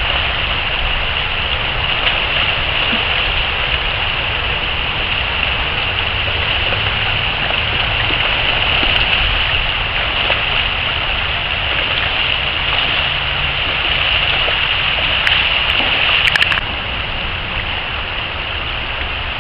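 Shallow stream running over rocks: a steady hiss of rushing water, a little quieter from about sixteen seconds in.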